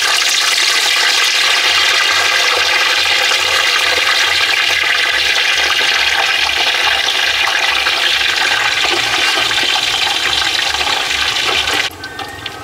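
Whole giant gourami and a second whole fish deep-frying in hot oil in a wok: a loud, steady sizzle that drops away sharply near the end.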